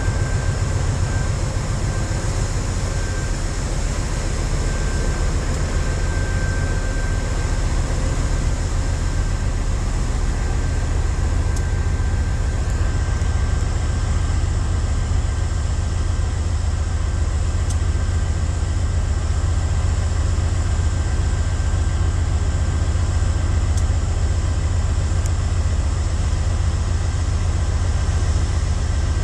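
Diesel engine of a GE AC44i locomotive running under power with a deep, steady rumble that grows slightly louder about halfway through.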